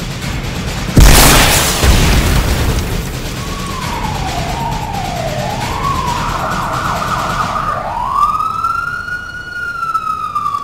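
A loud explosion boom about a second in, dying away over a couple of seconds, followed by an emergency-vehicle siren wailing, its pitch sliding up and down.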